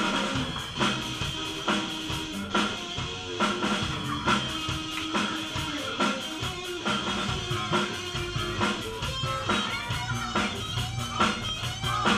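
Live band playing upbeat dance music: a drum kit keeping a steady beat under electric guitar, bass guitar and keyboard.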